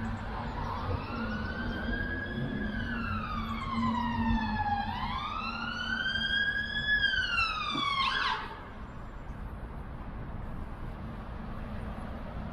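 Emergency vehicle siren wailing, its pitch rising and falling slowly twice before cutting off suddenly about eight seconds in.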